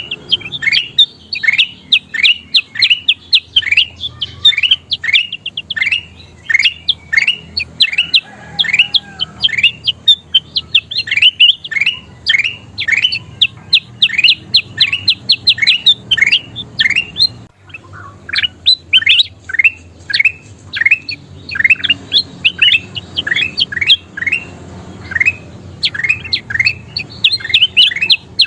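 Kutilang emas (a bulbul) singing: a long, rapid run of quick downward-sweeping chirps, several a second, with a brief pause about two-thirds of the way through.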